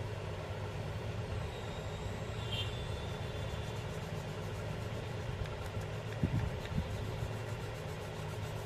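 A steady low machine hum, even throughout, with a couple of soft knocks a little after six seconds in.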